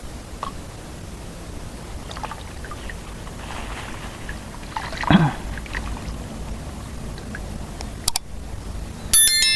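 Small water splashes and trickling around an angler wading in the water, with scattered light ticks. There is a louder short sound about five seconds in, and a brief high electronic tone near the end.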